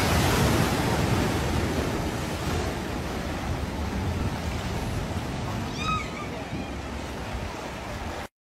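Rushing floodwater and heavy splashing as an SUV ploughs through a flooded ford. The sound is loudest at the start and eases to a steady rush of fast-flowing water. A brief high-pitched call sounds about six seconds in.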